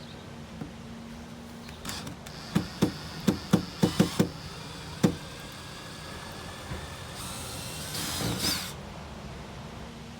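A run of about eight sharp knocks of a tool against a wooden window frame, with the screw heads being worked on to get the mounting screws out. Near the end there is a burst of noise lasting a second or so.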